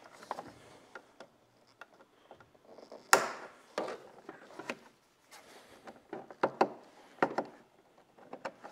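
Scattered plastic clicks and knocks as push-pin rivets are pressed in at the centre and pulled out of a Honda Gold Wing's plastic side cover, with the sharpest click about three seconds in.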